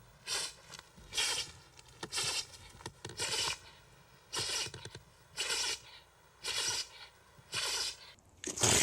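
An animal sneezing over and over in an even rhythm: nine short sneezes about a second apart, the last the loudest.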